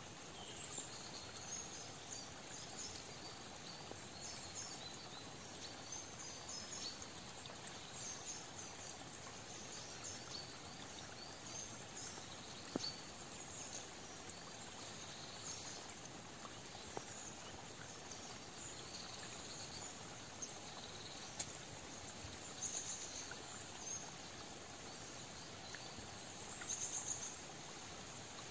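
Autumn forest ambience: a faint steady hiss with scattered short, high chirps and calls of small birds, a louder cluster of calls near the end, and a couple of sharp clicks.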